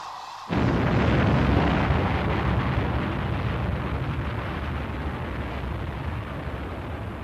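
Animated spaceship engine sound effect for the Arcadia: a deep, noisy rumble that starts suddenly about half a second in and then slowly fades as the ship draws away.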